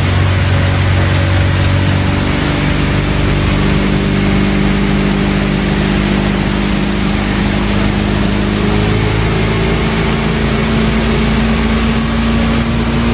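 Motorboat engine running steadily under way, with a steady rushing hiss over it. Its note steps up a little about nine seconds in.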